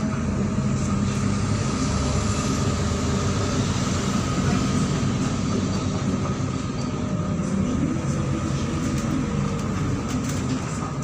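MAZ-103 city bus under way, heard from inside the cabin: steady engine and road rumble with a thin steady whine over it.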